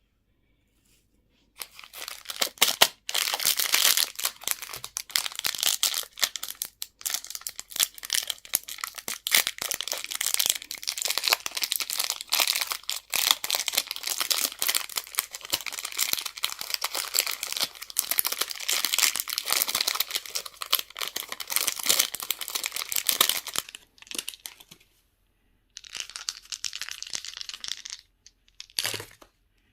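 Candy wrapper crinkling and tearing as it is unwrapped by hand. The dense crackling starts about a second and a half in and runs on, pauses briefly near the end, then resumes with a short thump.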